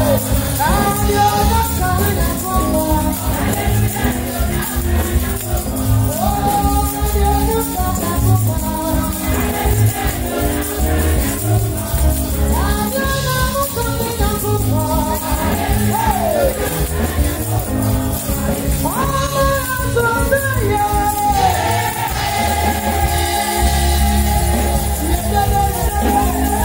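Gospel praise music: singing over a steady beat, with tambourines shaking along.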